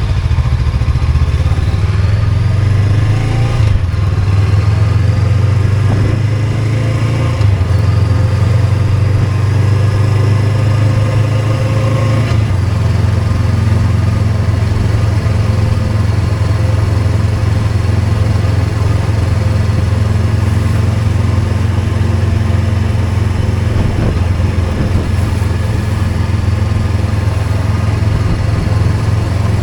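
Motorcycle engine running steadily, with a constant low drone.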